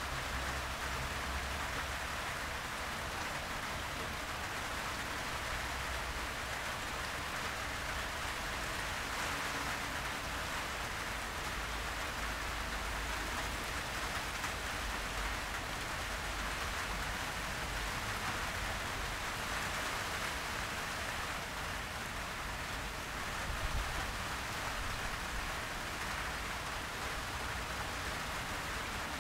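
Heavy rain falling steadily, an even, unbroken hiss of many drops.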